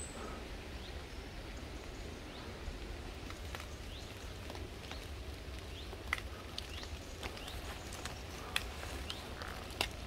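Woodland ambience: small birds give short chirps again and again over a steady low rumble, with a few sharp clicks and rustles from footsteps through the undergrowth.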